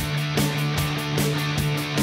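Background music with a steady beat, about two and a half beats a second, over a held bass note.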